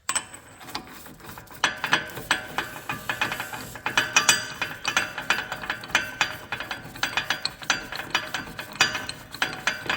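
Hand ratchet wrench clicking in quick runs of strokes, starting about a second and a half in, as a socket turns the front hub's main nut.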